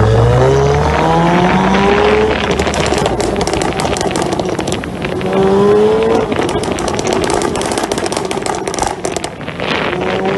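Volkswagen Golf GTI Clubsport's turbocharged four-cylinder exhaust accelerating hard three times, its note rising with each pull. Between the pulls come rapid runs of sharp crackling pops.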